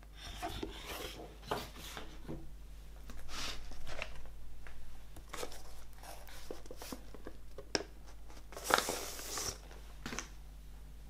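Paper and card handling: a large printed insert and a black paper record inner sleeve being slid, turned and rustled on a wooden table. A series of short rustles and scrapes, with a sharp click just before eight seconds in and the loudest, longest rustle at about nine seconds.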